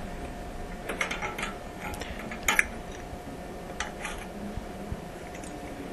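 Scattered light clinks and clicks of hard objects being handled during a toilet teardown, about half a dozen spread through, the sharpest about two and a half seconds in, over a faint steady hum.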